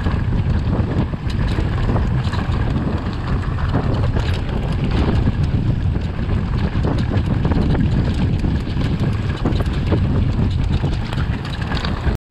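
Wind buffeting an action-camera microphone on a moving mountain bike, over the rumble of tyres and a steady rattle of knocks from the bike on rough, rocky trail. It cuts off abruptly near the end.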